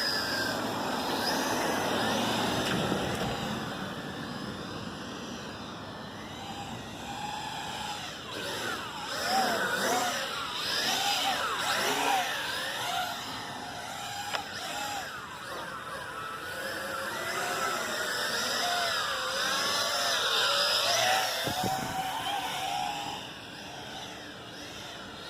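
Tarantula X6 toy quadcopter's small electric motors and propellers whining, the pitch rising and falling constantly as the throttle changes.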